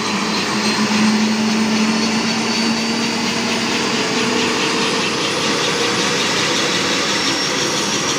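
Airbus AS350 Écureuil helicopter running on the ground with its rotor turning: a steady turbine whine over rotor noise, with a thin whine slowly rising in pitch. A low hum underneath fades out about halfway through.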